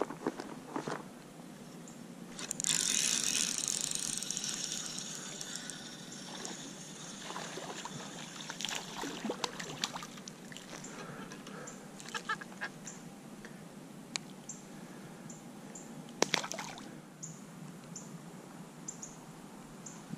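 Water splashing and sloshing as a smallmouth bass is let go back into the river, loudest about two and a half seconds in and fading over a couple of seconds. Scattered clicks, handling noises and small splashes follow, with another short splash later on. Near the end a faint high chirp repeats about twice a second.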